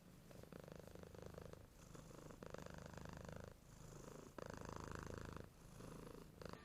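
A domestic cat purring softly, the purr swelling and easing in alternating stretches of about a second.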